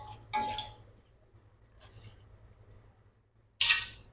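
Metal ladle and wire strainer clinking against a wok while stirring pastry strips frying in oil: a few separate sharp clinks, one ringing briefly, the loudest near the end.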